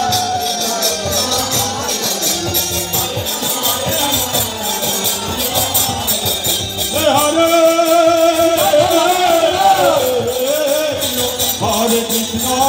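Harinam sankirtan: a group chanting to khol drums and the steady jingling clash of kartal hand cymbals, the cymbals ringing throughout. The chorus of voices comes in strongest about seven seconds in.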